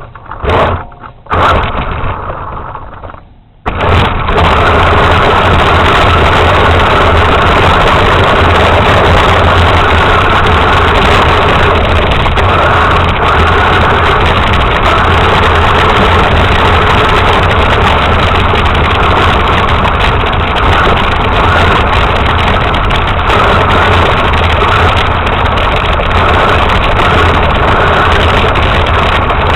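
Radio-controlled truck's motor, heard in a few short bursts and then running steadily and loudly from about four seconds in.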